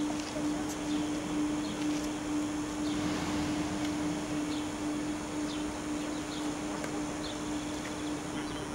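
Outdoor ambience: a steady noisy background with a constant low hum, and short high bird chirps scattered through.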